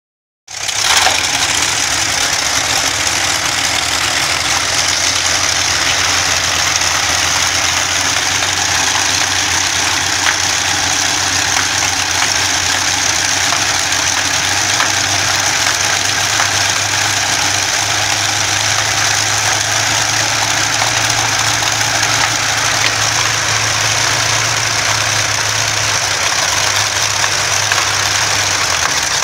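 Two Rolls-Royce turboprop engines running together on their test trailers, turning their propellers, loud and steady with a high turbine whine over a low drone. The drone grows stronger about halfway through.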